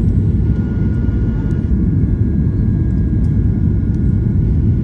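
Airliner cabin noise heard from a window seat while descending to land: a loud, steady low roar of the jet engines and rushing air, with a faint steady whine above it.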